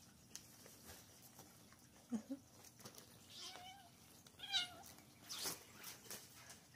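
Kitten meowing: two short, high mews about a second apart, roughly halfway through, followed by a brief rustle of the crinkly fabric play tunnel.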